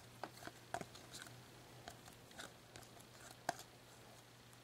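Panini Prizm trading cards being slid one by one through the hands: faint rustles and light clicks as each card passes, with a few sharper ticks.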